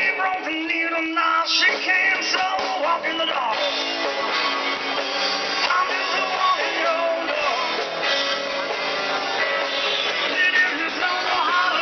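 Live rock band playing: a singer's vocals over electric guitar and drums.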